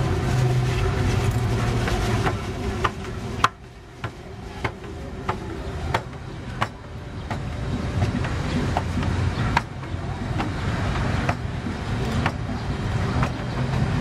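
Steady low motor rumble of outdoor traffic or machinery. After about three and a half seconds the level dips and a series of sharp taps follows, roughly one a second.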